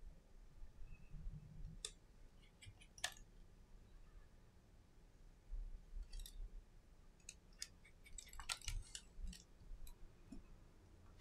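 Small, sharp clicks and ticks of a precision screwdriver and tiny metal screws and brackets being handled on an iPhone SE display assembly. They come singly at first, then in a quick cluster a bit after halfway.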